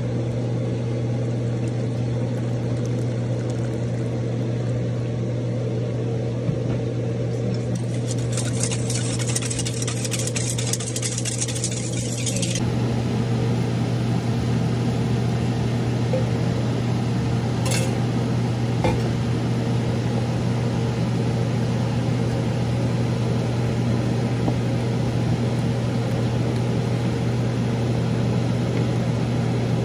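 Wire whisk working flour in a stainless steel bowl, with a few seconds of fast, scratchy whisking about eight seconds in. Then sauce is poured into a pan of chicken and seafood and stirred with a wooden spoon, all over a steady low hum.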